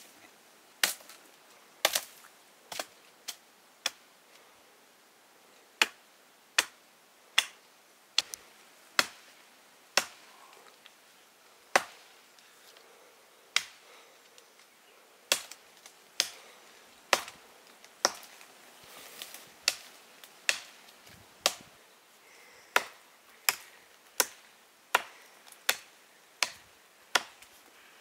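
Chopping: sharp blade strikes, a little more than one a second, with a short pause early in the run and an even rhythm in the second half.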